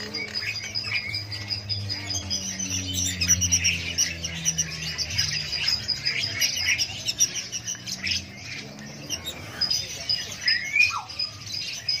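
Many caged lovebirds chirping and chattering in rapid, high, overlapping calls. A low steady hum runs under them and fades out about halfway through.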